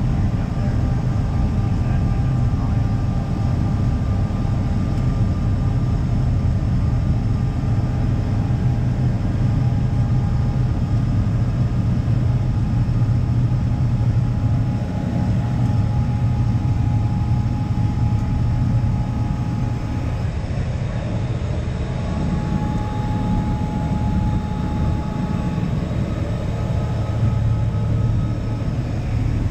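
Helicopter in flight, heard from inside the cabin: a steady low drone of the rotor and engine with a thin, even whine above it.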